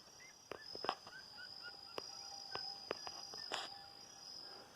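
Faint outdoor farm ambience: short high bird chirps, a few sharp clicks and brief squeaks over a steady high-pitched whine.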